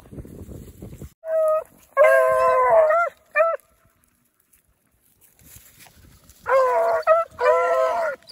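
Beagle hounds baying: two bouts of drawn-out howls, each a short call, a long one of about a second and a short one, about a second in and again about six seconds in. The hounds are digging in loose dirt as they bay.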